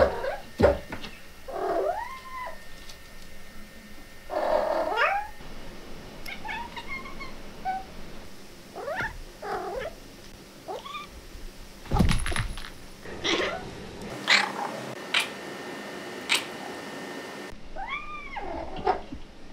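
A kitten meowing and chirping in a string of short calls, each rising and falling in pitch, with a few thumps between them, the loudest about twelve seconds in.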